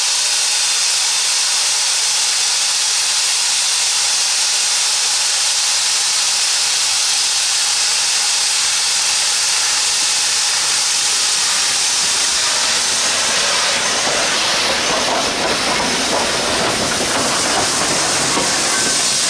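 Steam locomotive hissing steadily as it vents steam. About thirteen seconds in, a deeper, fuller rush of steam joins the hiss and carries on.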